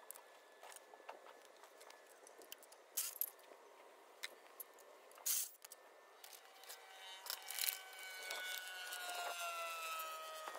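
Hand tools working on the 12 mm bolts that hold the engine on: scattered metallic clicks and clinks. From about six seconds in, a steady whine grows louder and slowly drops in pitch.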